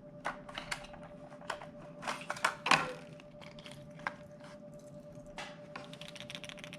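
Crankbait and its plastic packaging being handled: scattered clicks and crinkles, then a quick rattling from about five and a half seconds in as the lure is shaken and its single-bead knocker rattle knocks inside the body.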